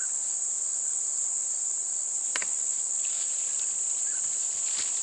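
Steady high-pitched drone of insects in the bush, with one sharp click about halfway through. Near the end come light, quick footsteps of someone running barefoot on a sandy track.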